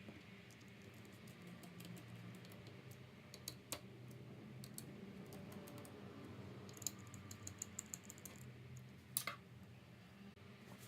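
Faint, scattered small clicks and taps of hands and small tools working on a laptop's parts, with a quick run of light clicks about seven seconds in and a sharper click a little after nine seconds, over a faint steady low hum.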